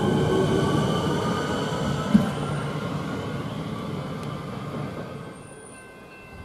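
Siemens Nexas electric train pulling away: a set of whining tones from its traction equipment rising slowly in pitch as it gathers speed, over a rumble of wheels on rail, fading as it leaves. A single short knock about two seconds in.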